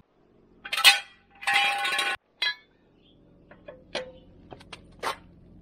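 Metal clinking and clanking of tools and wheel hardware: two loud ringing clanks about a second in, a short one after, then scattered lighter clicks.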